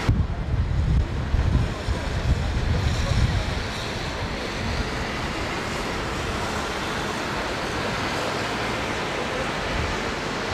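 Wind buffeting the microphone with gusty rumbling for the first few seconds over outdoor ambience, then a steady rushing noise.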